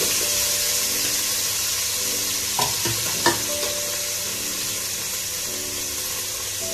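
Marinated chicken pieces frying in hot oil in a nonstick pot, a steady sizzle, while a wooden spatula stirs them. Two short knocks come near the middle.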